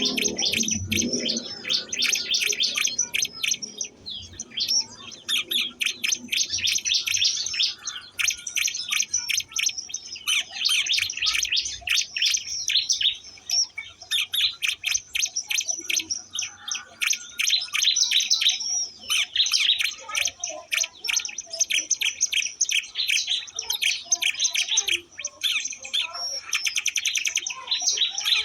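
Ciblek (a small prinia) singing a fast, unbroken run of high, sharp chirps.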